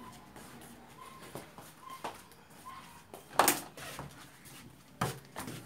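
A few separate knocks and clatters of objects being handled and set down in a small room, the loudest about three and a half seconds in.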